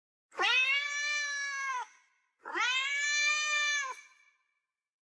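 Domestic cat meowing twice: two long meows of about a second and a half each, a short gap apart, each rising quickly at the start and then held level.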